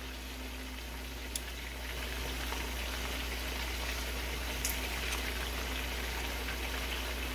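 Chicken thighs frying skin side down in hot oil in a cast-iron skillet: a steady sizzle that grows slightly louder about two seconds in. Metal tongs click lightly against the meat and pan a couple of times.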